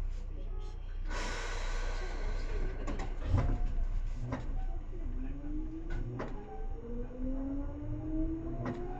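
Seibu 2000 series electric train pulling away: a hiss of air about a second in, then clunks from the underfloor switchgear, and from about five seconds the traction motors' whine rising steadily in pitch as the train accelerates.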